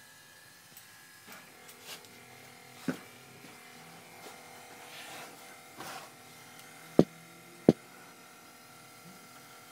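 A car making an unexplained noise: a faint steady hum with irregular clicks and knocks, and two sharp, loud knocks about half a second apart near the end.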